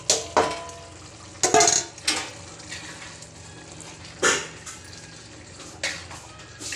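A metal spoon scraping and knocking against a steel bowl and a kadai as mashed roasted eggplant is scooped into the masala and stirred in: about six sharp metallic clinks, some ringing briefly, over a low sizzle from the pan.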